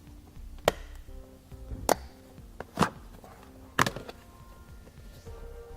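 Plastic door sill plate being pried up, its retaining clips letting go in four sharp snaps about a second apart.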